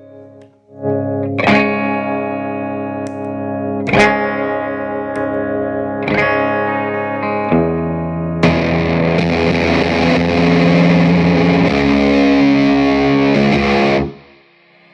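Electric guitar played through a Spaceman Effects Secret Mission IV distortion pedal: several chords struck and left to ring, at first fairly clean. About eight seconds in the sound turns much brighter and more distorted, as it does when the guitar's volume knob is turned back up. The last chord cuts off near the end.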